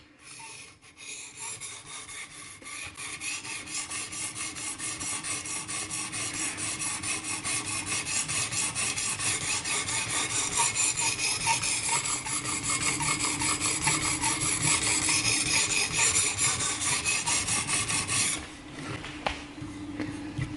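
Steel knife edge being stroked back and forth on a fairly new 800-grit diamond plate at a fixed angle: a steady run of quick, even rasping strokes that stops abruptly near the end. The new plate cuts aggressively, about like a 400 grit.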